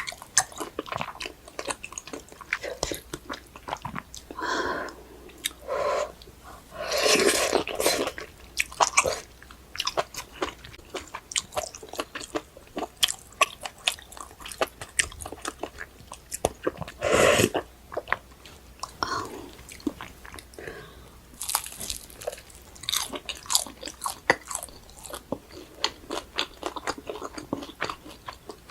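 Close-miked eating: steady chewing and crunching with wet mouth clicks, and a few louder bites along the way.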